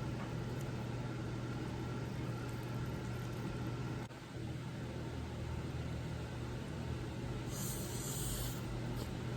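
Room tone: a steady low hum, with a short hiss lasting about a second near the end.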